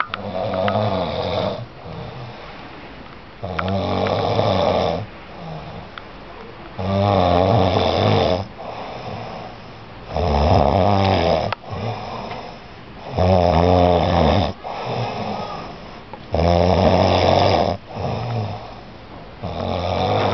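A person snoring, drunk and tired: a loud snore about every three seconds, seven in all, each followed by a quieter breath.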